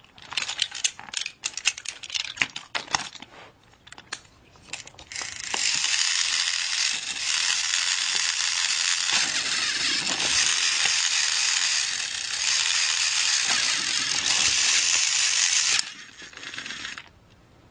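Battery-powered toy train's motor and gears running steadily for about ten seconds, after a few seconds of irregular clicks and rattles. The running cuts out suddenly near the end, leaving a fainter whir that then stops.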